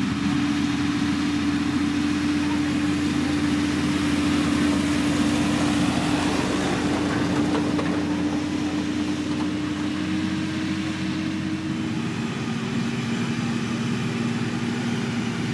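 Diesel engine of heavy road-building machinery, a motor grader or road roller, running steadily, its pitch dropping slightly about twelve seconds in.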